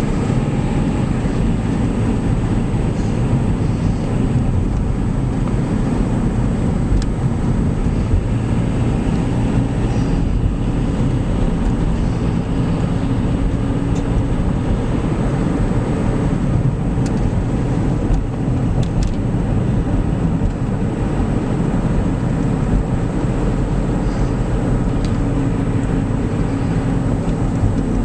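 Steady road and engine noise inside a moving car, a low, even rumble with no change in pace.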